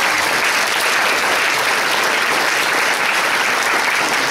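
Audience applauding at the end of a song in a stage musical, with dense, steady clapping.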